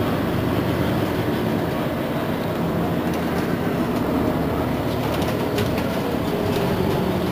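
Mercedes-Benz Citaro C2 Hybrid city bus standing still with its diesel engine idling, a steady hum. A few faint clicks come near the end.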